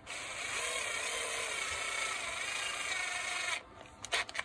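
Bosch GWB12V-10 cordless angle drill running unloaded with a steady whir through its newly replaced gearbox, cutting off abruptly after about three and a half seconds. A few light clicks follow near the end.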